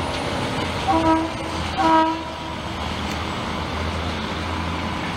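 Horn of an Apolo diesel railcar set sounding two short blasts about a second apart, the second slightly louder, over the steady low rumble of the train running on the rails.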